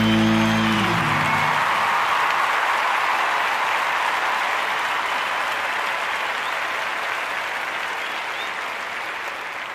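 Live concert audience applauding, slowly fading. The song's last chord rings out and dies away in the first second or two.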